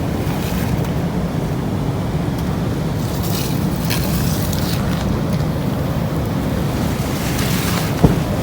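Strong wind, a steady low rumble with gusts, with a few brief rustles a few seconds in and a short knock near the end.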